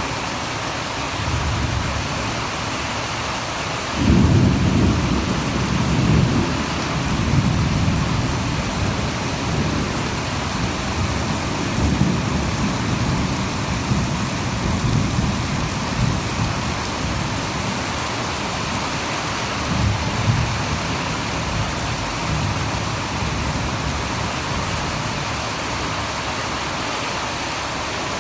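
Heavy rain falling with a steady hiss, and thunder rumbling: a sudden loud rumble about four seconds in, then further rumbles on and off.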